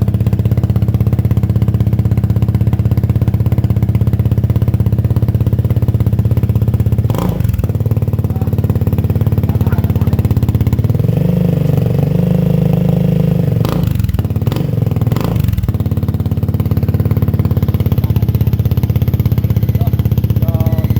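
Kymco Xciting VS400 maxi-scooter engine idling steadily through an Akrapovic carbon exhaust. It gets a short throttle blip about a third of the way in, a rev held for a couple of seconds just past halfway, and two quick blips right after.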